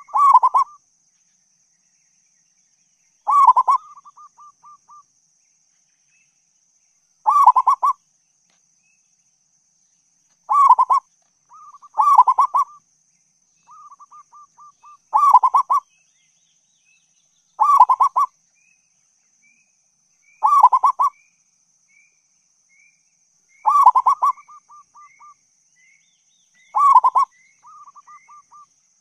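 Zebra dove (perkutut) calling: about ten loud bursts of rapid cooing notes, one roughly every three seconds, several followed by a soft trail of short, quick coos.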